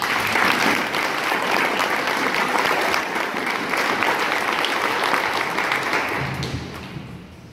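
Audience applause, a dense steady clapping that dies away over the last second or so.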